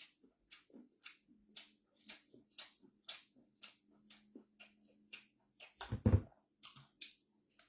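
Close-up wet chewing and mouth smacks, about two a second, with a heavier thump about six seconds in.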